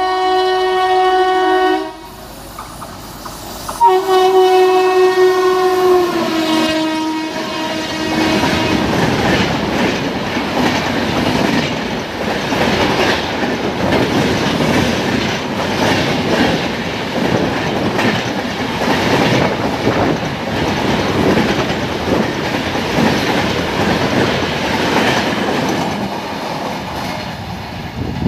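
An Indian Railways express train running through at high speed. Its locomotive horn blasts twice, and the second blast drops in pitch as the engine passes. Then the coaches rush past with a fast, even clickety-clack of wheels over the rail joints, lasting about twenty seconds.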